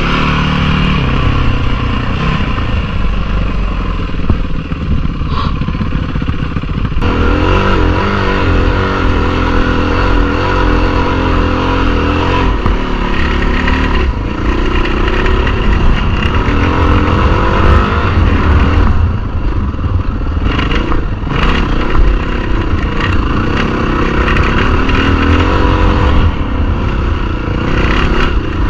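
Yamaha WR single-cylinder four-stroke dirt bike engine revving up and down as it is ridden over a sandy, rutted trail, with wind on the microphone. The sound changes character about seven seconds in.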